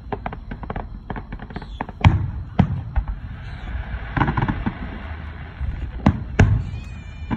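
Aerial firework shells bursting: a rapid run of crackling pops at first, then heavy booms in two close pairs, about two seconds in and about six seconds in, with more crackling between them.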